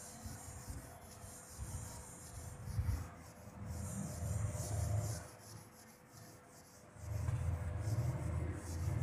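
Whiteboard duster rubbing across a whiteboard in repeated back-and-forth strokes as the writing is wiped off. A low rumble joins in at times, mostly about four to five seconds in and again from about seven seconds.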